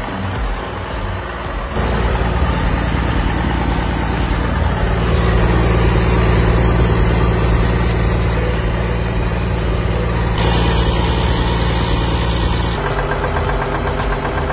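Caterpillar 3406C inline-six turbocharged diesel engine running steadily on a test run, getting louder about two seconds in. The test shows it healthy, with good oil pressure and no bad smoke from the turbo.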